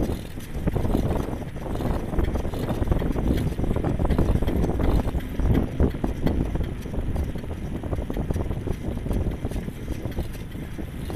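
Wind buffeting the microphone while moving outdoors: a rough low rumble that rises and falls unevenly.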